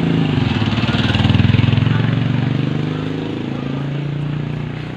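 A motor vehicle passing close by on the road, its engine swelling to a peak about a second and a half in, then fading.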